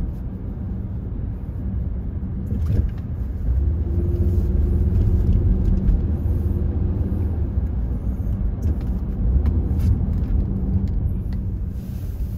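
Car engine and tyre noise heard inside the cabin while driving: a steady low rumble with a faint hum, and a few light clicks.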